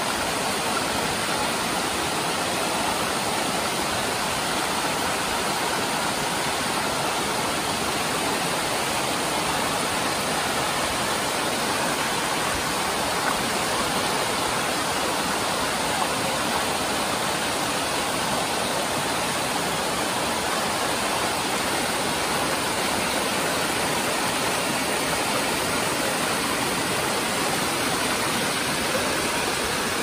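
Whitewater of the Urach waterfall's stream rushing over rocks in a steady, unbroken roar of running water.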